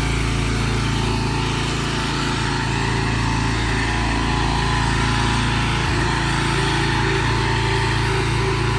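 A pressure washer's small engine running steadily, with the hiss of water spraying from the wand as soap is applied at low pressure by downstreaming.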